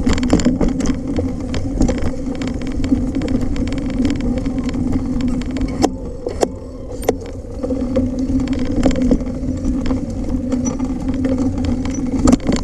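Full-suspension 29er mountain bike rolling along a dirt trail: a steady hum under many short rattles and knocks as the bike runs over the bumpy ground, with a few sharper knocks about halfway through.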